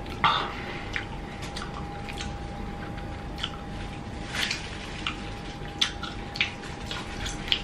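Wet, sticky chewing and lip smacking of a mouthful of raw honeycomb and beeswax: scattered short smacks, the loudest just after the start. A faint steady hum runs underneath.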